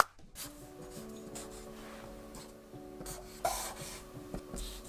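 Marker pen writing on paper: a series of short scratchy strokes as large letters are drawn.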